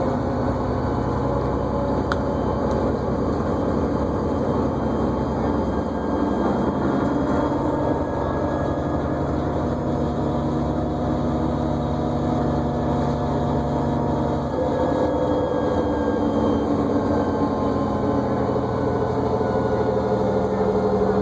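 Cabin sound of a New Flyer D40LFR diesel transit bus under way: the engine and drivetrain run steadily with a whine, its pitch shifting about two-thirds of the way through as the bus changes speed. A brief click about two seconds in.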